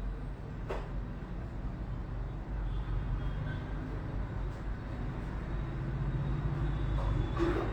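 Steady low rumble of road traffic, with faint clicks about a second in and again near the end.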